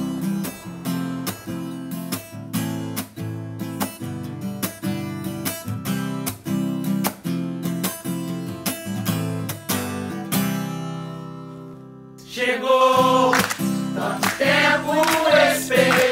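Background music: a steadily strummed acoustic guitar that thins out around ten seconds in, then singing voices come in over it about twelve seconds in.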